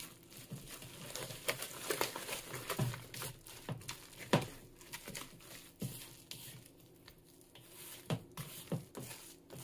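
Silicone spatula stirring sticky dough of melted mozzarella, coconut flour and raw eggs in a mixing bowl: a run of irregular sticky smacks and scrapes as the eggs are worked in fast.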